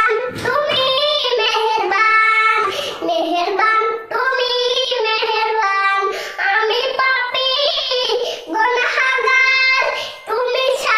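A young boy singing a Bengali gojol, an Islamic devotional song, solo and unaccompanied, in long held notes with brief breaths between phrases.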